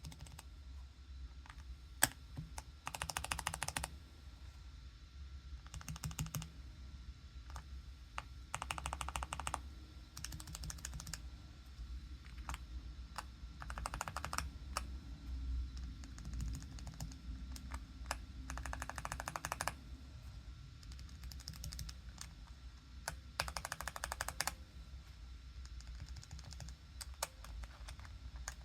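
Gateron mechanical keyboard switches being typed on. Short bursts of rapid keystroke clicks, each about a second long, come every few seconds with pauses between, and a single sharp click sounds about two seconds in.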